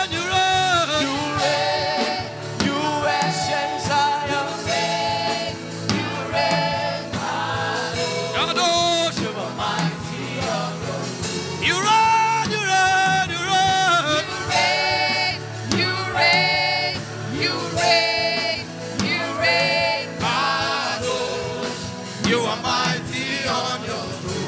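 Gospel worship music: voices singing a chant over instrumental backing with a regular beat.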